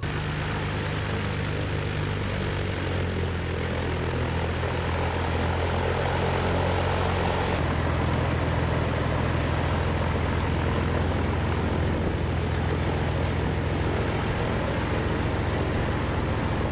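Piper PA-46 single-engine propeller plane running at taxi power: its engine and propeller give a steady, even low drone with a broad rushing noise above it.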